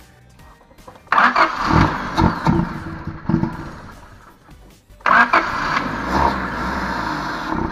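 Car engine starting and running on satin black spray paint sprayed into its open throttle body, with the spray can hissing. The sound fades away around the middle, then starts again sharply about five seconds in and holds steady.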